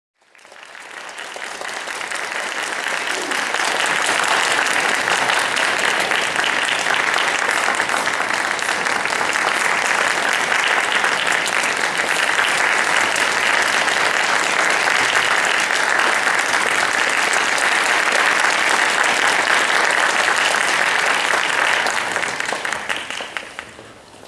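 Audience applauding: the clapping swells up over the first few seconds, holds steady, and dies away near the end.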